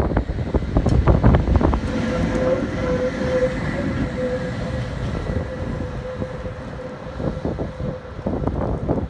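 Tatra T3 tram passing close by, its wheels rumbling and clacking on the rails. From about two seconds in, a steady whining tone sounds as it runs on round the curve, over a fainter rumble, with a few more clacks near the end.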